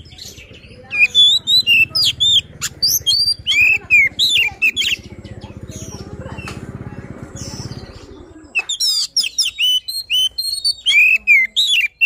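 Oriental magpie-robin (kacer) singing fast, loud phrases of varied whistles and sharp chirps, in two busy stretches with a quieter spell between them. A low hum underneath stops about eight seconds in.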